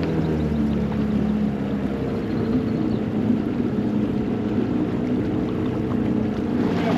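Boat's outboard motor running steadily, with small shifts in its pitch.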